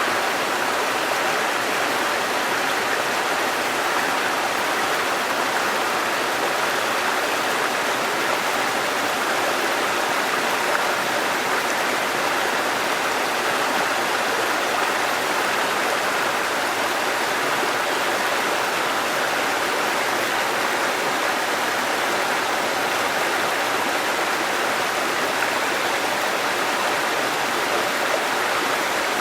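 Waterfall: falling water rushing steadily and evenly, without change.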